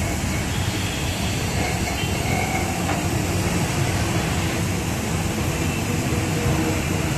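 A steady low mechanical rumble that gets louder at the start and then holds.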